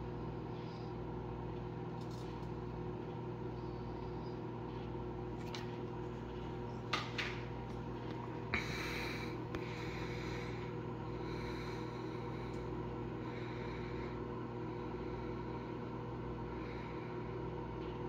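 Frigidaire over-the-range microwave oven running with a steady hum, with a few faint pops midway through from the food heating in its aluminum tray, not from the metal arcing.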